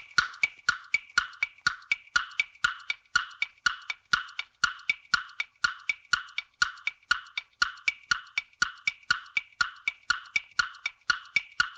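Quiz countdown-timer sound effect: a steady run of sharp, wood-block-like clock ticks, about four a second, counting down the answer time.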